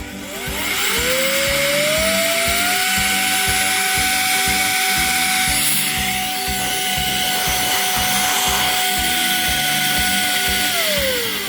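Small high-speed motor of a rechargeable electric air duster switching on, its whine rising over about two seconds to a steady pitch with a rush of air, then winding down near the end. Background music with a steady beat plays under it.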